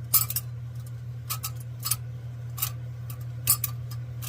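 Piezo striker on a vintage Campingaz gas lantern clicking repeatedly as it is worked to light the mantle: several sharp clicks at uneven intervals over a steady low hum.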